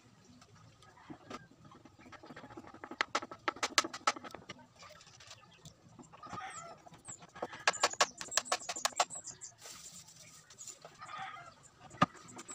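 Two runs of quick, sharp metallic clicks from screws and a hand screwdriver as a subwoofer's frame is screwed down onto a plywood box, with a single click near the end. A chicken clucks in the background a couple of times.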